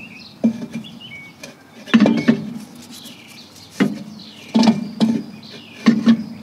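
Steel brake drum knocking and scraping against the rear brake shoes as it is pushed and wiggled onto the hub: a series of ringing metallic clunks. It won't slide on because the shoe adjuster is set too far out.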